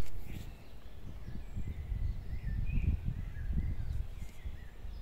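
Outdoor garden ambience: wind buffeting the microphone as a low, uneven rumble, with faint bird chirps. A single thump right at the start.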